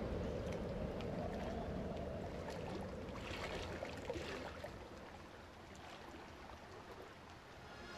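Choppy water splashing and rushing around a sailing radio-controlled J-Class model yacht, with scattered small splashes, gradually fading down.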